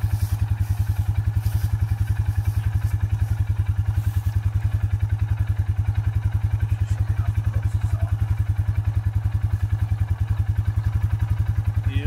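ATV (four-wheeler) engine idling steadily with an even, rapid pulse, with a few faint clicks of handling in the first few seconds.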